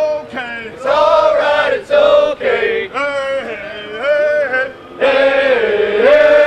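A formation of soldiers chanting a military cadence together in loud sung phrases, a group of mostly male voices.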